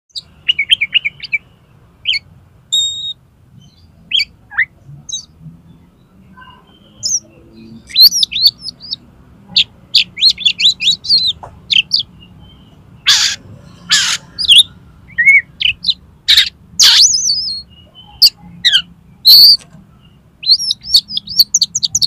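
Oriental magpie-robin (kacer) singing in the rapid, agitated 'konslet' style: quick bursts of whistled notes and trills, broken by several short harsh notes, with brief pauses between phrases.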